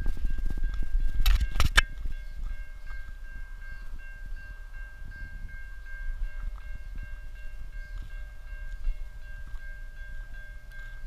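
Level crossing warning bells ringing steadily, with wind rumbling on the microphone and a cluster of loud knocks about a second and a half in.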